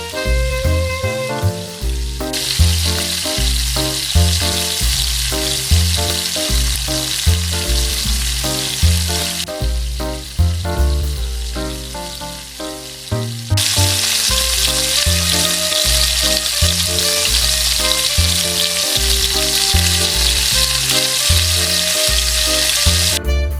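Hot oil sizzling as Wenzhou dengzhan cakes, rice-flour batter fritters, deep-fry, in two long stretches with a short break between them. Background music with a steady bass beat plays throughout.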